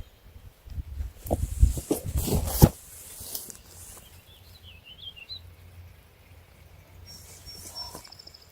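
Low rumble with a few sharp knocks for the first two and a half seconds, then a bird chirping faintly in a quick run of notes.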